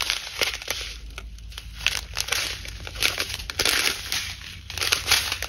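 Small clear plastic bags of round diamond-painting drills crinkling and rustling as they are handled, in several short bursts.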